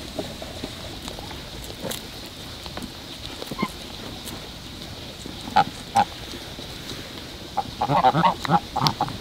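Domestic fowl calling: two short, loud honking calls about halfway through, then a quick run of honks or quacks near the end.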